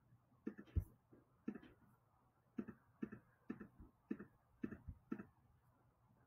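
Faint, irregular clicking from a computer being operated, about a dozen short clicks, some in quick pairs, as items on screen are selected.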